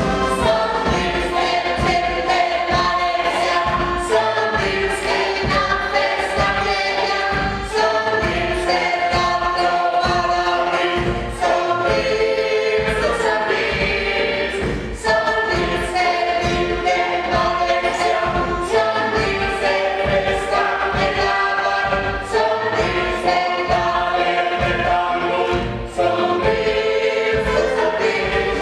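A song sung by a group of voices in chorus over an accompaniment with a steady beat.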